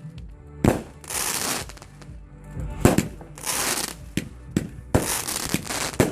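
Fireworks going off: a run of sharp bangs, each followed by about half a second of crackling hiss, coming roughly every one to two seconds.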